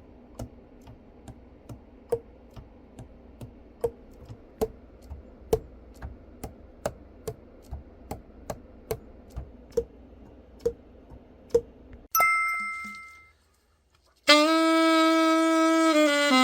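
Sharp clicks about twice a second, then a single bell-like ding and a brief silence. About fourteen seconds in, a freshly overhauled Albert Weber A96-GP alto saxophone starts a loud held note.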